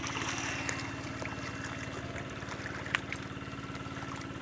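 Steady buzzing hum of a backpack electrofishing unit, with light water splashing from wading in a shallow creek and one sharp click about three seconds in.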